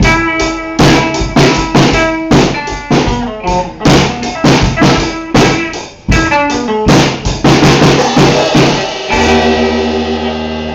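A band playing without vocals, led by a drum kit with bass drum and snare, over bass and other pitched instruments. A quick run of drum strokes leads into a final held chord about nine seconds in, which rings on and fades as the song ends.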